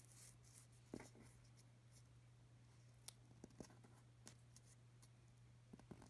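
Near silence: a few faint crinkles and ticks of origami paper being folded and creased by fingers, over a steady low hum.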